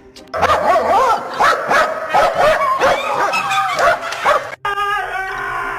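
Dog vocalizing excitedly: a quick run of yips and whining, howl-like cries that slide up and down in pitch. The sound breaks off suddenly about four and a half seconds in.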